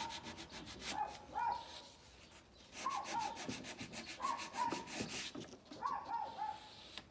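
Sandpaper rubbing in quick short strokes, taking a small bump off a Bondo-repaired wooden surface. A Chihuahua yaps repeatedly in the background, its high barks mostly coming in pairs.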